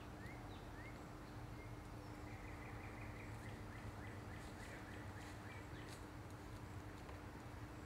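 A bird calling a quick series of short rising chirps, several a second, over a steady low hum, with a few faint sharp snaps in between.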